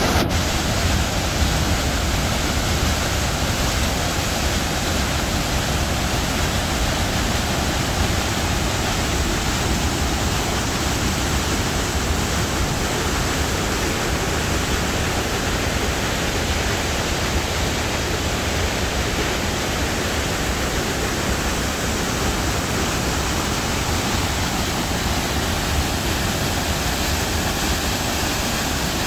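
A creek in flood, muddy water pouring through a weir's sluice gate and churning down the channel: a loud, steady rush of water.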